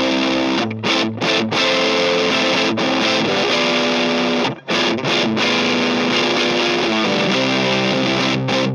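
Electric guitar, a 1980 Gibson RD Artist, played through the MuFx BoosTron 3's Rat-based distortion channel: distorted chords held and cut short with brief stops about a second in, near the middle, and near the end.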